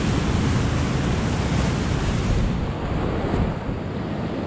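Ocean surf breaking and washing over rocks, a steady rushing roar, with wind noise on the microphone. The high hiss drops away a little past halfway.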